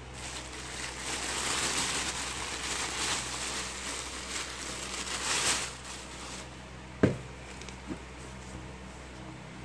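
Thin plastic carrier bag rustling as it is pulled open and off a cardboard box, for about six seconds. Then the box is set down on a wooden tabletop with a sharp knock and a lighter second one about a second later.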